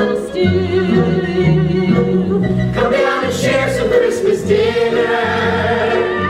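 Show-tune music: a group of voices sings over instrumental accompaniment with a moving bass line.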